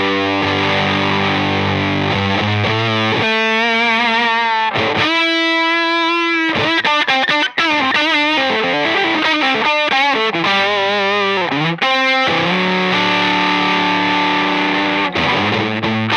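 Electric guitar played through a Spruce Effects Black Friday one-knob silicon fuzz pedal. Sustained fuzzy chords give way about five seconds in to single-note lines with bends and vibrato, and chords return near the end.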